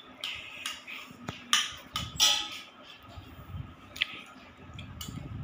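Scattered light clinks, taps and short scrapes of spoons against steel plates and pots during a meal, at irregular intervals.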